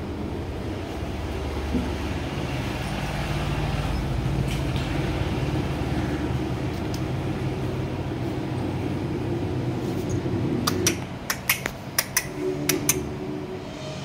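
A steady low engine-like rumble with a held hum. Near the end come a quick run of sharp clicks.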